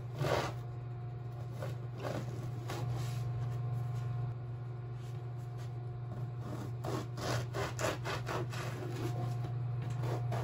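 A knife sawing back and forth through a crusty baguette on a plastic cutting board: crunchy, rasping strokes in clusters, one loaf slice after another, over a steady low hum.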